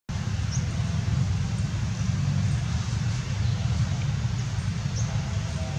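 Steady outdoor background rumble and hiss, with a few faint short high chirps about half a second in and near the end.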